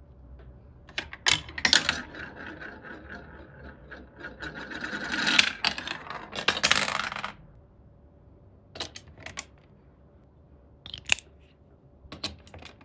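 Marble rolling and rattling down a track of plastic building bricks. The rattle grows louder for about five seconds and stops suddenly. It is framed by a few sharp clicks, at the start and three or four more near the end.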